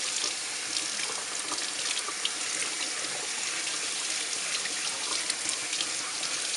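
Water running steadily from a sink faucet, the stream splashing onto a wet puppy's fur and into the sink, with small scattered splashes and drips.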